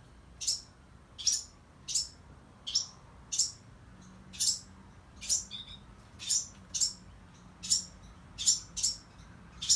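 Small songbirds chirping: short, sharp, high single chirps repeated about once or twice a second, irregularly spaced, from young birds and their parents near a nest.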